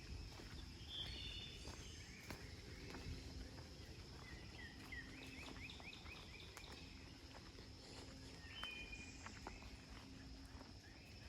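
Faint woodland sounds: birds chirping, with a quick run of notes about five seconds in, over a steady high drone of insects. Soft footsteps on the trail click now and then.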